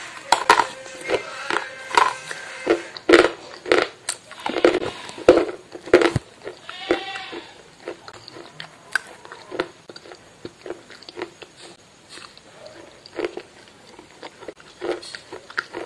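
A person biting and chewing something hard and crunchy, close to the microphone: loud, sharp crunches come thick through the first six seconds, then give way to softer, sparser chewing clicks.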